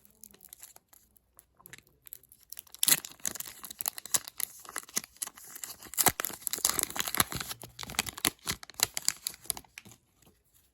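Hockey card pack's foil wrapper being torn open and crinkled: a dense run of crackling and tearing that starts about three seconds in and stops shortly before the end.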